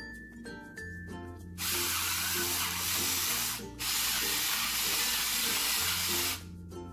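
Pepper mill grinding black peppercorns in two long gritty stretches with a short break between, over background music.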